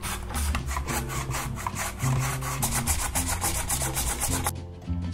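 Carrot being julienned on a mandoline slicer: a quick run of strokes as the carrot is pushed back and forth across the julienne blade, stopping about four and a half seconds in.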